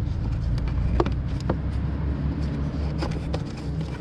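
Plastic air filter box cover being pressed and worked down into place over the filter, giving several light plastic clicks and knocks over a steady low rumble; the cover is being awkward to seat.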